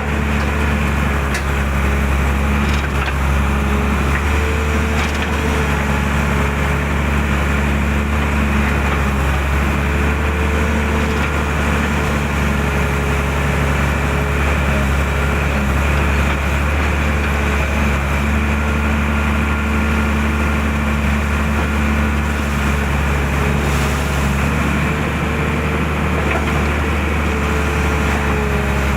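Excavator's diesel engine running steadily as it works, with a constant drone and a slight wavering in pitch.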